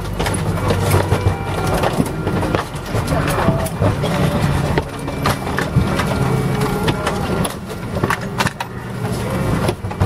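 Airliner cabin of a Boeing 777-200 taxiing to the gate: a steady low rumble with indistinct passenger voices and scattered clicks and knocks.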